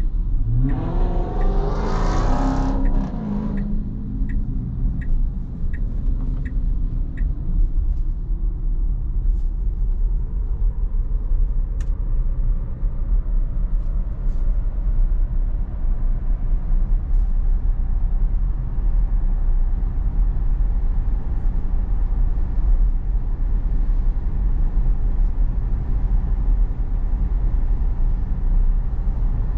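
Steady low road and tyre rumble inside a Tesla's cabin while driving, with a louder swell of noise in the first few seconds. A little after that comes a short run of about six evenly spaced ticks, like a turn signal clicking.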